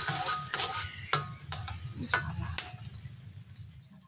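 Metal spatula scraping and clanking against a hot wok as margarine melts in it, with a light sizzle underneath. The strokes stop about two and a half seconds in, and the sizzle fades after that.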